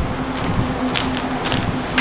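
Footsteps on a paved station platform, about two a second, over wind rumble on the microphone and a steady low hum.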